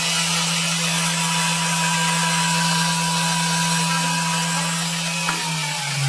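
Table saw motor running with no load, a steady hum with a high whine. About five seconds in, the push-button switch clicks off and the motor starts to wind down, its pitch falling.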